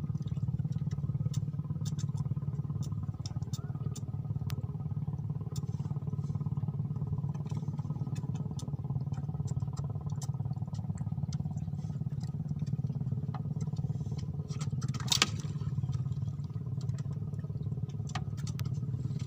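A small engine running steadily at an even speed, with light scattered clicks and a brief louder rustle about fifteen seconds in.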